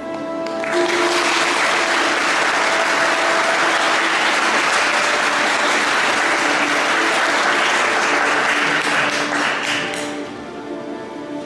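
Audience applauding, starting just under a second in and dying away about ten seconds in, over slow background music.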